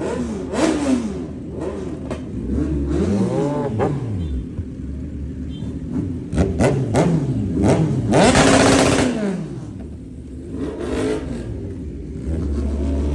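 Kawasaki Z1000 inline-four engine, remapped, being blipped repeatedly: the pitch climbs and falls in quick revs, with the loudest, highest rev a little past the middle.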